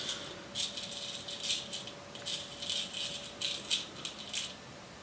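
Fly-tying hooks rattling in a small box as they are picked through, in about a dozen short, irregular shakes.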